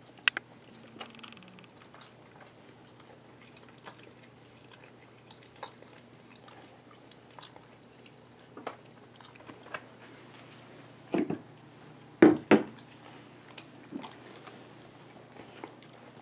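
Cat biting and chewing at a scrap of food: sparse soft clicks, with a short cluster of louder knocks about eleven to twelve and a half seconds in.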